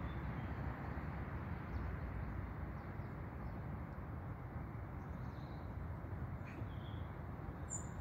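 Outdoor ambience: a steady low rumble of background noise with a few faint, brief bird chirps, the clearest a single high chirp near the end.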